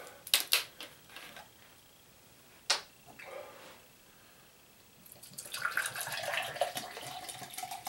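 Plastic cap twisted off a bottle of apple cider vinegar with a few clicks, and a single sharp click about three seconds in. From about five seconds in, vinegar pours from the bottle into a drinking glass with a steady splashing.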